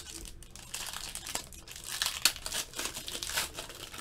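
Foil trading-card pack wrapper crinkling and tearing as it is opened by hand: a busy, irregular crackle with one sharp peak about two seconds in.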